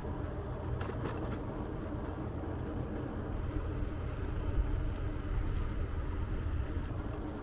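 Steady road and wind noise from a mountain bike being ridden along a road, heaviest in the low rumble, with a few faint ticks about a second in.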